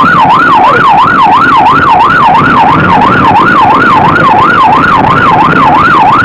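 Police siren on a fast up-and-down wail, about three sweeps a second, very loud, over the rumble of the moving car.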